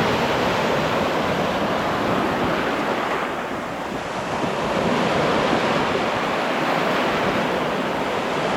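Gulf of Mexico surf washing onto a sandy beach, a steady wash of small waves with wind buffeting the microphone. The wash eases briefly about three and a half seconds in, then builds again.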